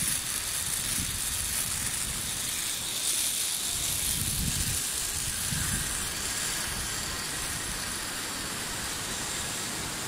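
Zipline pulley trolley running along the steel cable with a steady hiss, while wind buffets the microphone in uneven low gusts.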